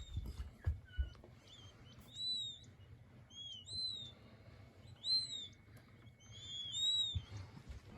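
King quail chicks peeping: short, high, arching whistled calls, singly and in pairs, every second or two. A few soft low knocks come near the start and again near the end.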